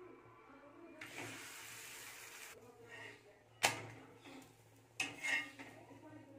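Metal spatula working on a cast-iron tawa as a cooked poli is lifted off it. A brief hiss comes about a second in, then the spatula knocks sharply against the pan twice, about a second and a half apart.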